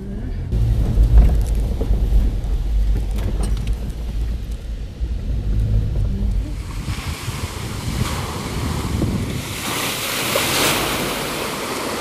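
In-cabin road noise of an SUV crawling over tree roots on a forest dirt track: a heavy low rumble with scattered knocks and jolts. From about seven seconds in the rumble gives way to a loud hissing wash of water as an SUV's tyres plough through a muddy puddle, strongest near the end.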